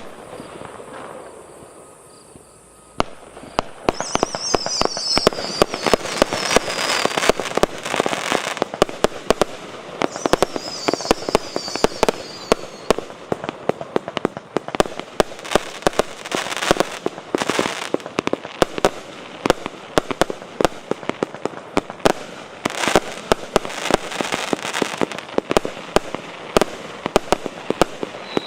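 A 196-shot firework cake (JF C25-196/01) firing a rapid, continuous string of bangs and crackling that starts about three seconds in. Falling whistles sound twice in the first half.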